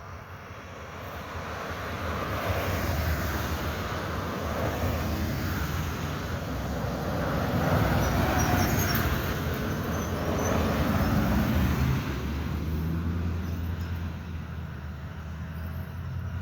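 Several cars driving past one after another, engine rumble and tyre noise swelling and fading as each goes by, loudest about eight seconds in.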